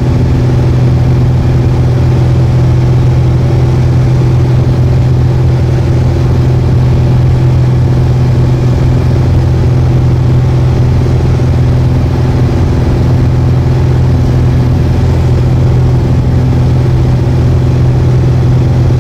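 Piper PA-28 Arrow's piston engine and propeller droning steadily in flight, heard inside the cabin, with a strong low hum and a rushing noise over it.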